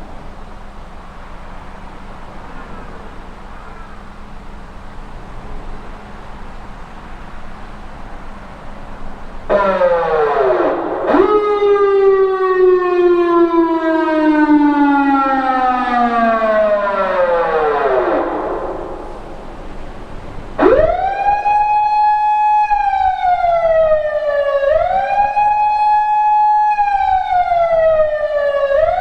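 Electronic siren from a PATLITE SAP-50 siren amplifier, after a steady hiss with a low hum. About ten seconds in, it sweeps up quickly and then slides slowly down in pitch for several seconds. After a short pause, it starts a repeating wail: a quick rise, a held tone and a fall, about every four seconds.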